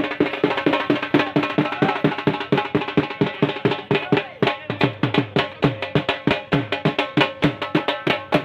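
Music driven by fast, steady drumming, with a held melody line above it.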